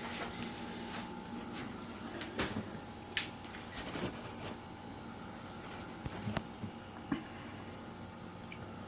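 Quiet room tone with a steady hum, broken by a handful of faint, short clicks and knocks.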